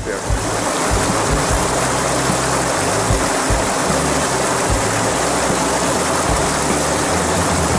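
Steady rush of creek water spilling over a small ledge into a pool, with the low notes of background music underneath.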